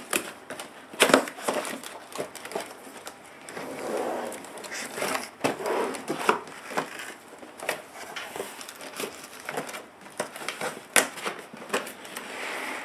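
Cardboard laptop box and its inner carton and foam packaging being opened and handled: rustling and scraping of cardboard with irregular sharp knocks and taps, the loudest about a second in and near the end.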